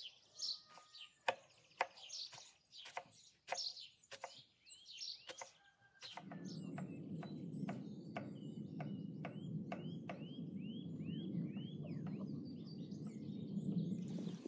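Knife chopping onion on a wooden cutting board, a quick run of sharp chops, with small birds chirping. About six seconds in a steady low rumble sets in, and a bird repeats a short downward-sweeping call about twice a second while a few chops continue.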